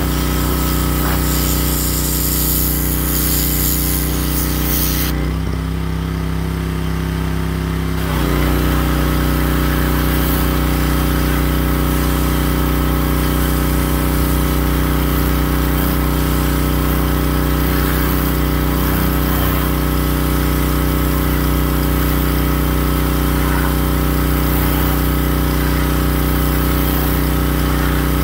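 Gas-engine pressure washer running steadily, its spray hissing. About five seconds in the spray cuts out for roughly three seconds and the engine note changes, then the spray comes back on.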